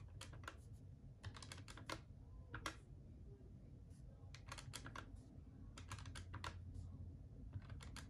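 Faint keys being tapped on a calculator in quick, irregular runs with short pauses between.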